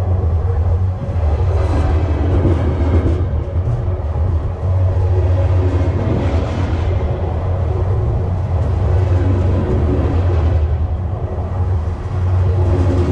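Long freight train rolling past at track level: a steady, loud low rumble and hum of wheels on rail, with faint clatter from the cars.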